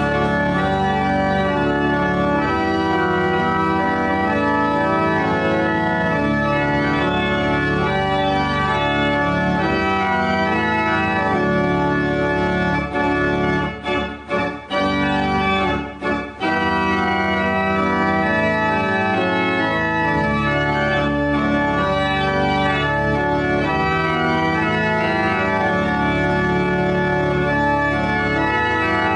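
Church organ playing slow, held chords, with a few short breaks between phrases about halfway through.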